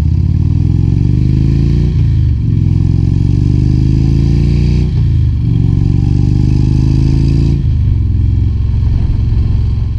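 2015 Indian Chief Vintage's Thunder Stroke 111 V-twin, breathing through a Rush Racing slip-on exhaust with 3.0-inch baffles, accelerating away through the gears. The revs climb and drop at three upshifts, about two, five and seven and a half seconds in, then the engine holds a steady cruise. The exhaust has its full, normal loud note here, not the flat, stock-like sound the bike sometimes falls into.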